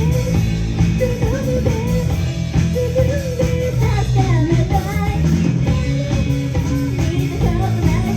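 Live rock band playing a song: electric guitar, bass and drums, with a melody line weaving above them.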